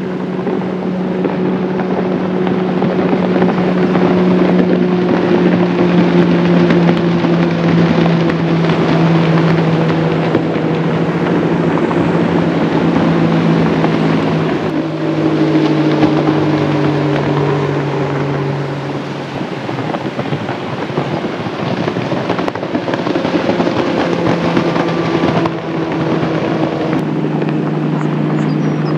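Outboard motors of bass boats running at speed across the water: a steady engine drone. Its pitch drops about halfway through as a boat passes, it weakens for a few seconds, and then another boat's engine comes in near the end.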